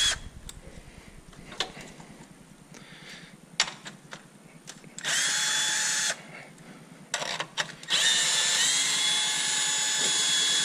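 Cordless drill/driver spinning a socket on a car battery's hold-down bracket nut. There is a short burst of whine about five seconds in, then a longer run of about three seconds that rises slightly in pitch as it spins up. A few light tool clicks come before.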